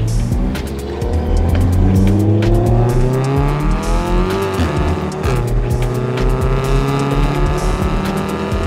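Car engine accelerating hard, its pitch climbing and then dropping with a gear change about halfway through, over background music with a steady bass beat.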